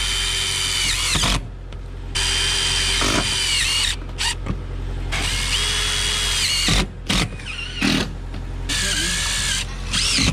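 DeWalt cordless drill driving screws to fasten metal drip edge along a roof edge. It makes several whining runs of a second or two each, and at the end of each the pitch drops as the screw seats, with a few shorter bursts near the end.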